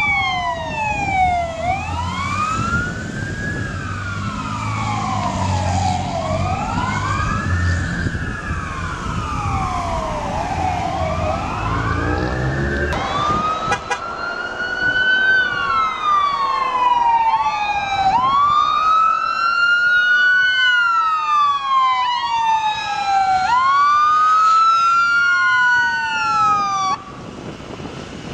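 Fire truck sirens wailing, rising and falling about every two and a half seconds, over a heavy engine's low rumble. About halfway through, the sound cuts to other emergency vehicle sirens, each sweep rising quickly and falling slowly, with a second siren overlapping.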